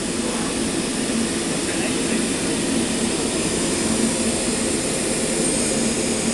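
STM computer-controlled flatbed cutting table running as its cutting head travels over the sheet: a steady, even machine noise with a low hum.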